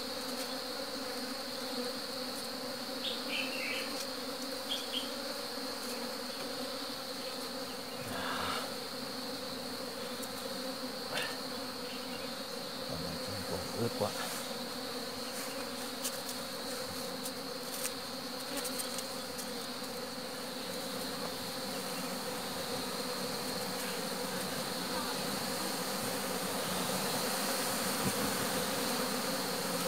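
A mass of honeybees buzzing in a steady drone as the cluster is scooped by hand into a hollow-log hive, with a few faint knocks.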